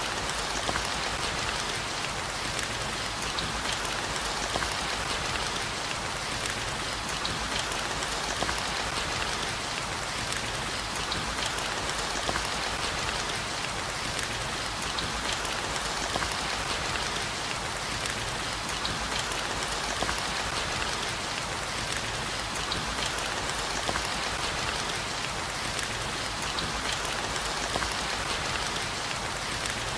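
Steady rain, an even hiss dotted with many small sharp drop impacts.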